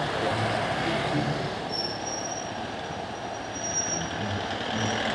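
Motorcycle engines running at low revs with road noise, joined about two seconds in by a thin, steady high-pitched whine that breaks off now and then.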